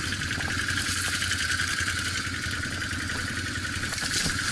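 Off-road vehicle's engine running steadily at low revs, with a constant hiss over it.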